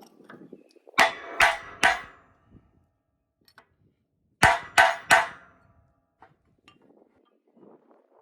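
Hammer striking steel, two sets of three quick ringing clangs about three seconds apart, tapping a bearing into place on a disc harrow.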